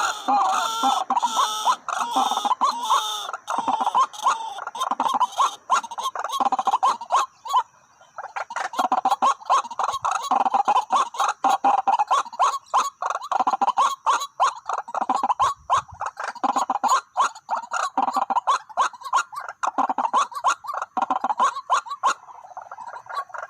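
White-breasted waterhens calling, a fast run of repeated harsh notes mixed with sharp clicks, breaking off briefly about eight seconds in and then starting again.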